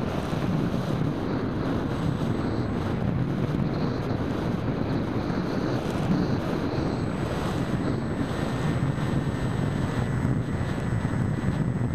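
Steady wind rushing over the microphone of a keychain 808 camera mounted on an EasyStar 2 RC plane in flight, a rough, low-heavy rush that holds level throughout, with a faint thin high whine underneath.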